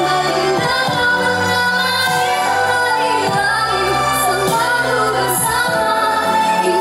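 A woman singing a pop song over band accompaniment, with sustained chords and a bass line under the melody.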